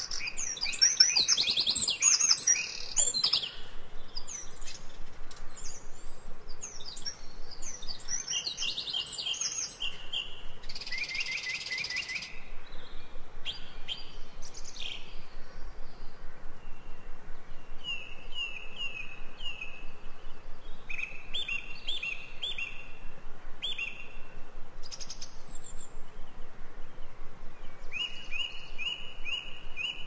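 Forest birds singing and chirping over one another. Quick overlapping chirps and trills come first, and from about halfway on there are series of short repeated notes.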